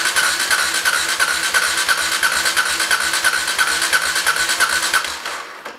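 A 2001 Kawasaki KLR 650's single-cylinder engine cranking over on its electric starter, with a steady whine and an even beat of compression strokes, for a wet compression test with the spark plug out and oil in the cylinder. The cranking stops about five seconds in.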